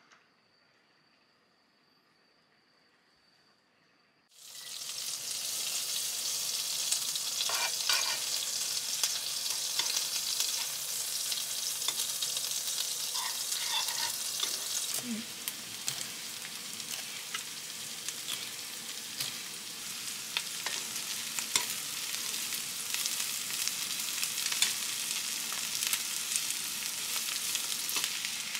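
Near silence for the first four seconds, then butter and minced garlic sizzling in a frying pan on an induction hob. A spatula stirs through it with frequent small clicks and scrapes against the pan. Later the pan holds sliced onion and green pepper, still frying.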